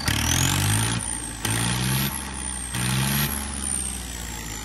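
John Deere tractor's turbocharged diesel engine revved up three times. A high turbocharger whistle climbs with each rev and sinks as the revs fall, trailing slowly downward after the last: the turbo's 'back whistle' on throttle-off, which is being tested.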